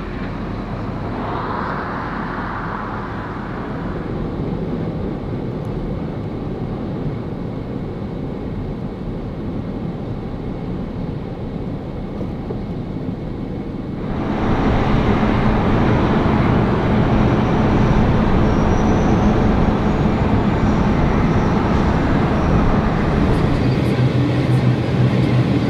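Steady vehicle and road-traffic noise. It gets louder about halfway through, when a low engine drone comes in.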